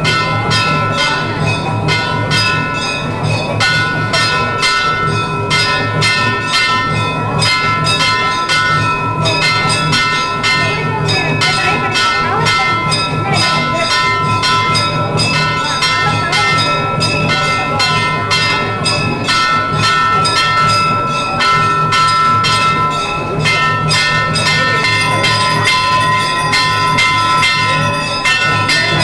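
Temple bells struck rapidly and without pause, their ringing tones held steady under the quick strikes, as rung during a Shiva lingam abhishekam.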